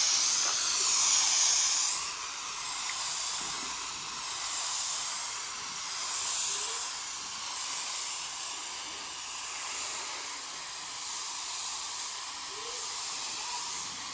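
Compressed-air paint spray gun hissing as it sprays black paint onto a glass sheet, swelling and fading every couple of seconds as the gun sweeps back and forth.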